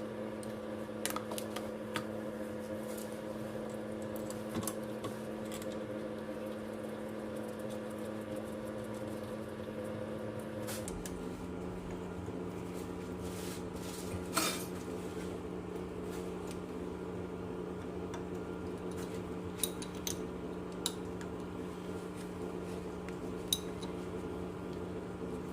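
Scattered light metallic clinks and taps of wrench, bolts and brake parts as a rear disc-brake caliper is fitted, over a steady low hum that steps slightly lower in pitch about eleven seconds in.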